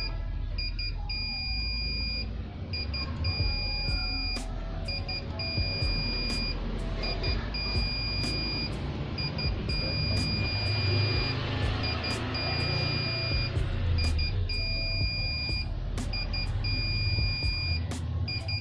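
Electric scooter buzzer run by a Fardriver ND72240 controller, beeping on and off in a high tone with short and long beeps, sounding while the controller's auto-learn runs. A dense low rumble lies underneath.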